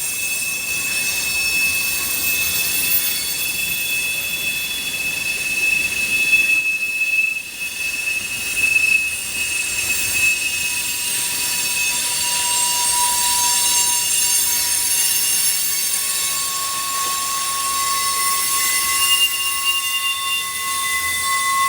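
Freight train wheels squealing against the rails as the cars roll past: a loud screech made of several steady high tones that drift and change pitch, with a short dip about seven seconds in.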